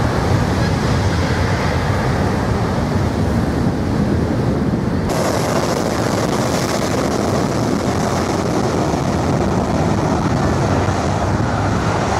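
Airliner jet engines at high thrust, heard close behind the aircraft as a loud, steady rushing noise, with the jet blast buffeting the microphone like strong wind. About five seconds in, the sound changes suddenly to a brighter, hissier rush.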